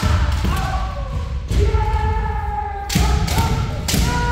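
Kendo practitioners' long drawn-out kiai shouts, several voices overlapping, over repeated sharp thuds from strikes and foot stamps on the dojo floor.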